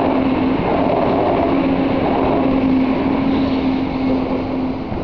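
Taipei Metro train running along the track beside the path: a steady hum over a low rumble that eases off slightly near the end.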